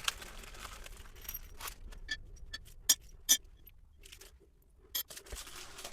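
Small toilet-seat mounting hardware being handled: scattered light clicks and clinks, with two sharper clicks about three seconds in and another near the end.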